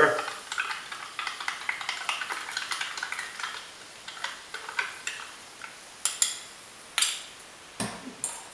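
A spoon stirring peach drink powder into sparkling mineral water, with quick small clinks against the sides of the container over a faint fizz. It ends with a few sharper knocks in the last few seconds.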